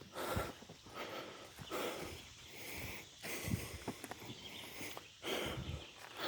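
A few slow footsteps rustling through leaf litter on a woodland trail, with breathing and sniffing close to the microphone.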